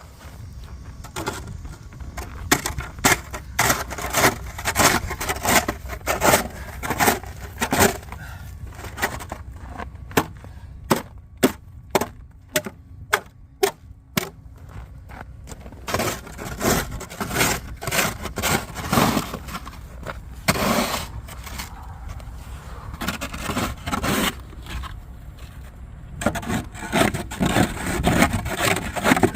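Frozen ice being chipped and scraped off pavement with a blade: many sharp strikes and scraping strokes, with a quick run of evenly spaced chops partway through, over a steady low rumble.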